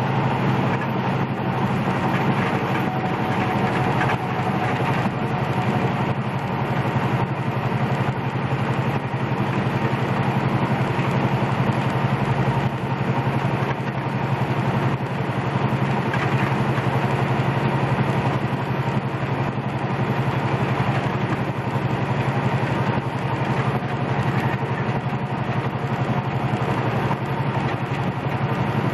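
A big rig's diesel engine running steadily at cruise, heard from inside the cab with road noise: an even low drone that neither rises nor falls.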